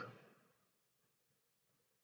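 Near silence: a man's voice trails off at the very start, then nothing but a faint background hiss.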